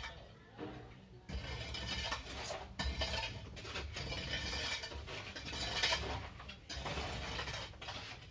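Irregular light clattering and knocking over a steady background hiss, starting about a second in.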